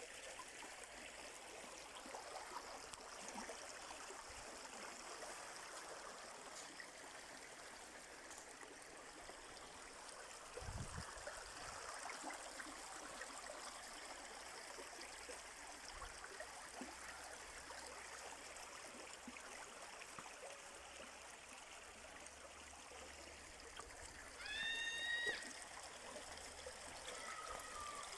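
Stream running with a steady trickle. About three-quarters through, a brief pitched call with several overtones, about a second long, is the loudest sound.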